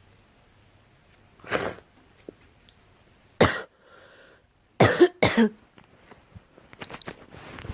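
A girl coughing: a single cough, another about two seconds later, then a quick run of three coughs.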